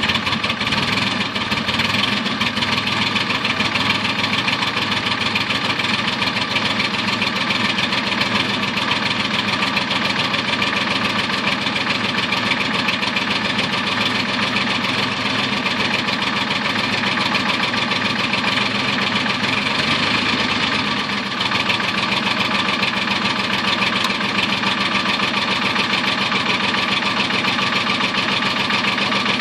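1986 Star 200 truck's six-cylinder diesel engine idling steadily with a fast, even beat, freshly caught on a cold start at about −10 °C without glow plugs, while it is still cold.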